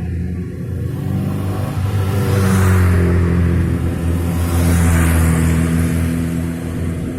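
Vintage vehicles driving past with engines running, the sound swelling as vehicles pass about three seconds and five seconds in.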